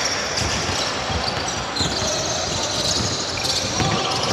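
A basketball game in play: the ball bouncing on the court, with short high-pitched squeaks over it.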